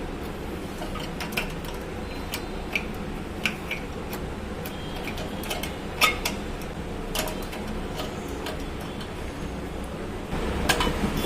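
Scattered light clicks and knocks of plastic parts being handled and tightened as a toilet's ball cock fill valve is locked in place in the tank, over a steady low hum. The sharpest click comes about six seconds in.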